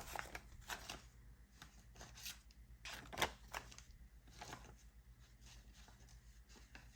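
Paper banknotes being handled: faint, scattered rustles and crisp flicks of bills.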